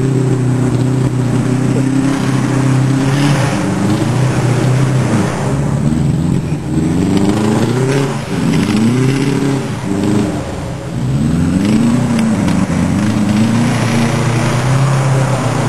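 Rallycross car engine revving up and dropping back again and again as the car accelerates and lifts, over a steady low hum.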